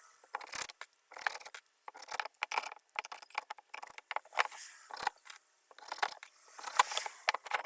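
Irregular light metallic clicks and clinks, like screws being handled and rattled together.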